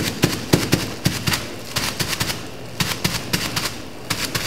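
A crumpled wad of metallic foil film tapped again and again onto a tacky plastisol print on fabric: sharp pats about four a second, with a couple of short breaks. This is the tapped-foil ('batidinho') technique, pressing the foil onto the adhesive so the metallic layer transfers in patches.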